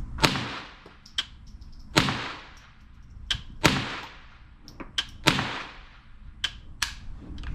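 AR-15 pistol with a CMMG .22 LR conversion kit firing four single shots about a second and a half apart, each with a short echo tail, with lighter metallic clicks in between.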